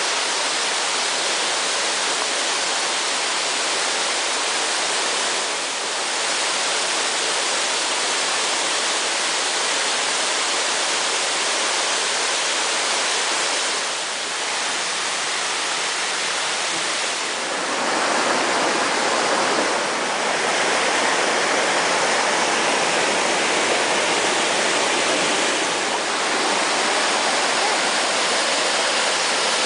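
Waterfall: a steady rush of falling water. A little past halfway it grows slightly louder and fuller.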